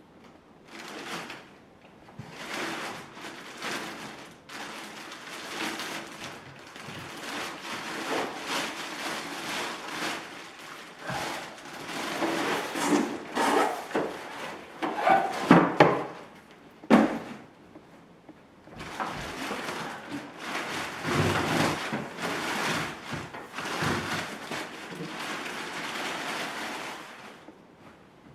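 Packaging being handled and opened during an unboxing: irregular scraping, rustling and knocking, with a few sharp thumps about halfway through.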